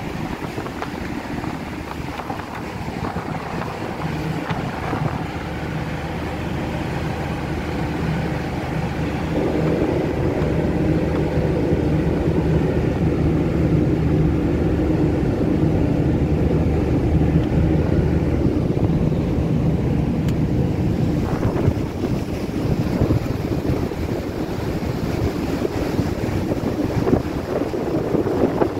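Gale wind buffeting the microphone over the steady low drone of ship's diesel engines. The drone grows louder and fuller for several seconds in the middle.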